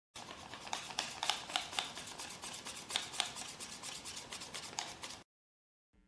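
Paper origami flapping bird being worked by hand, its folded paper wings flapping: a fast, irregular crisp rustling and clicking of paper that stops abruptly about five seconds in.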